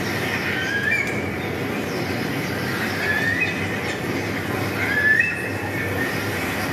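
Steady rushing noise with short, high rising chirps every couple of seconds; the loudest chirp comes about five seconds in.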